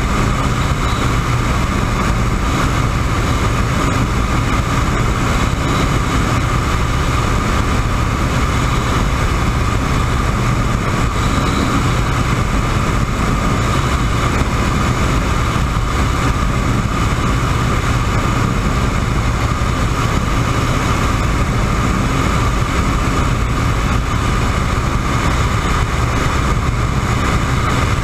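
WACO YMF-5 biplane's Jacobs R-755 seven-cylinder radial engine and propeller running steadily in cruise flight. It is heard from the open cockpit with wind rushing past.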